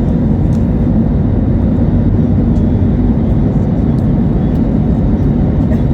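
Steady cabin noise inside an Airbus A320neo-family airliner in flight: the low rumble of the jet engines and rushing air, with a faint steady hum.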